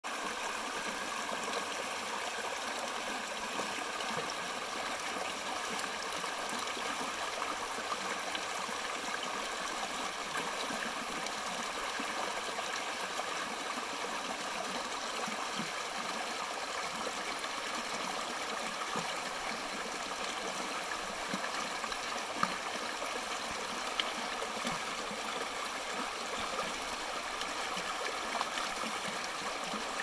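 Shallow rocky brook babbling over stones and a small cascade: a steady rush of running water, with a couple of brief louder splashes near the end.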